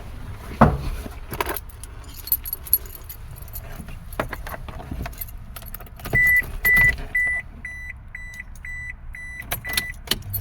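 Car keys jangling and clicking as the ignition key is handled, then a run of short electronic beeps at one pitch, about two a second, eight or nine in all.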